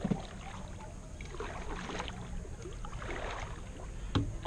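Water movement and small clicks around a kayak over a low steady rumble, with one sharp knock about four seconds in.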